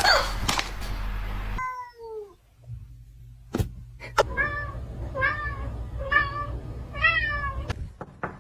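A cat meowing: one falling meow about two seconds in, then four short meows about a second apart. Before them comes a second and a half of rushing noise, and two sharp knocks fall just before the run of meows.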